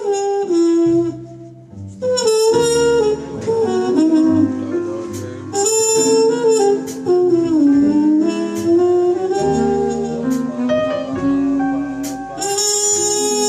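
Live jazz group playing: a horn carries the melody over a stepping bass line and drum kit, with cymbal crashes about two seconds in, around six seconds and again near the end.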